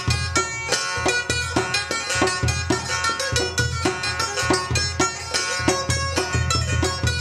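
A Gilgiti sitar, a long-necked plucked lute, playing a folk tune over a metal goblet drum beating a steady rhythm.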